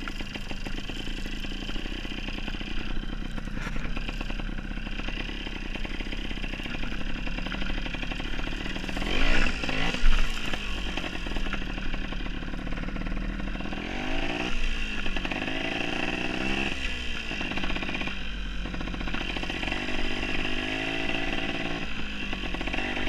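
Dirt bike engine running as the bike rides over rough ground, revving up and down several times in the second half, with two louder bangs about nine and ten seconds in.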